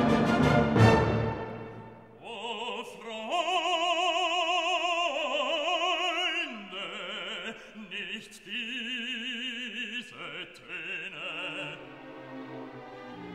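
Background music: a loud orchestral chord dies away, and then an operatic voice sings long notes with a wide vibrato over orchestral accompaniment.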